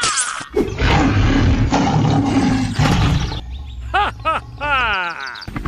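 A loud, rough animal-like roar lasting about three seconds, followed near the end by several quick warbling calls that swoop up and down in pitch.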